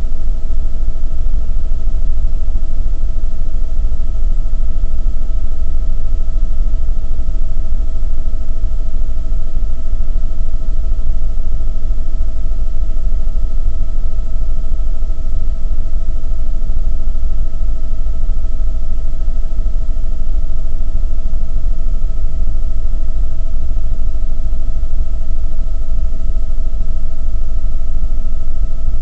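Helicopter in flight heard from inside the cabin: a loud, steady low rumble from the engine and rotors, with a constant high whine over it.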